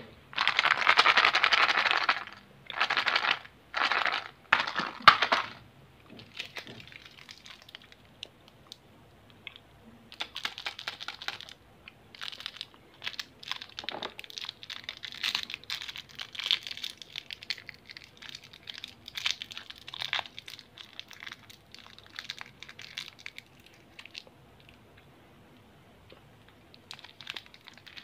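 Candy wrappers being handled and unwrapped. It starts with several loud bursts of wrapper crackling in the first five seconds. Then come softer, irregular crinkles and small clicks as gold foil is peeled off a small wrapped sweet.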